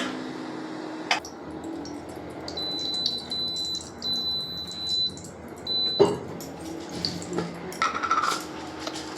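Kitchen utensils clattering: sharp knocks of pots and dishes, loudest about six seconds in, with small clinks between them. A thin, high, steady tone comes and goes in the middle.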